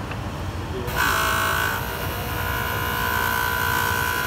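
Jooltool rotary polishing machine running, with a steady high whine and a hiss that starts suddenly and grows louder about a second in as the stainless steel watch clasp is pressed against the spinning polishing wheel.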